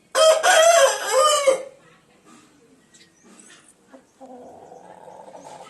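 Aseel rooster crowing once, a loud call of about a second and a half that bends in pitch, followed by fainter scattered sounds and a quieter, steadier sound near the end.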